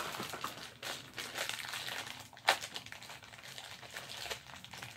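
Plastic packaging of a blind-pack minifigure crinkling and rustling as it is handled, with a sharp snap at the start and another about two and a half seconds in.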